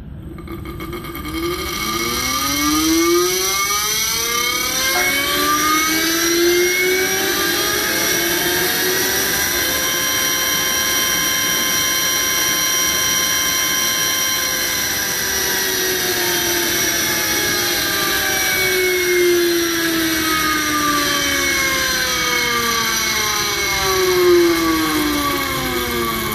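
Flow bench spinning a gear-type oil pump: a loud mechanical whine that climbs steadily in pitch as it is run up toward 9,000 RPM. It holds at top speed for a few seconds, then falls as the pump winds back down.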